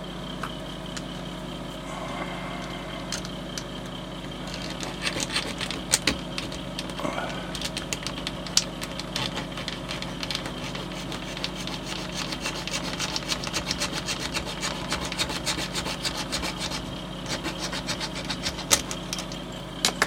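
Craft knife cutting through a plastic strip to split it in half, in a long run of quick scraping strokes with a few sharp clicks, over a steady low hum.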